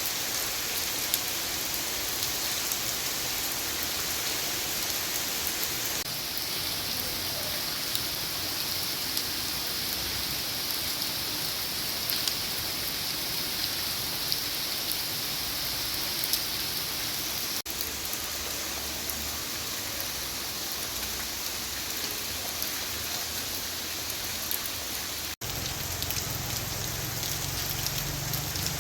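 Heavy rain falling in a steady hiss, broken by two brief cuts; after the second, near the end, a low hum joins it.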